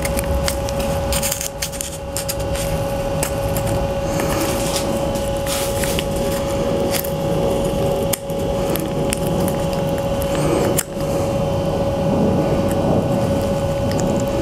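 Small parts of a motorcycle's in-tank fuel pump assembly being handled and fitted together by hand, making scattered light clicks and rubbing, over a steady mechanical hum.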